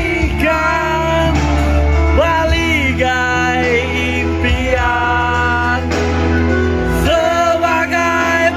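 A man sings karaoke into a handheld microphone over a backing music track.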